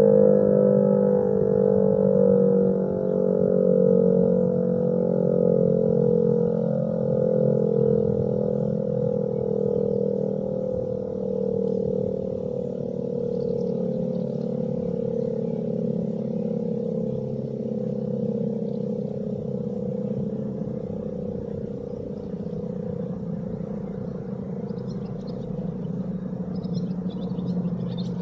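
Old, rusty DS977 electric motor siren wailing on a steady tone that slowly fades and sinks a little in pitch as it winds down.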